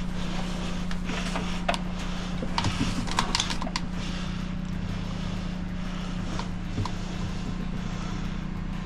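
A machine running with a steady low hum, with scattered clicks and knocks over the first four seconds.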